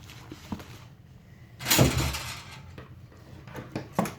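Handling noise from a bulletproof vest panel being moved on a surface: a loud thump about a second and a half in, with a short rustle after it and a few small clicks before and after.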